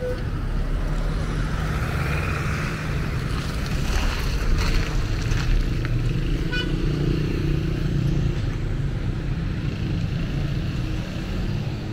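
Busy street traffic running past in a steady low rumble, with a few clicks and knocks around the middle and a brief high beep a little past halfway.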